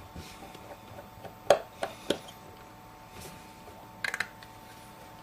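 Light clicks and taps from a small Phillips screwdriver and tiny screws while the screws of an iPhone 5's metal connector cover are removed. Three clicks come about a second and a half in, and a quick rattle of several clicks near the end.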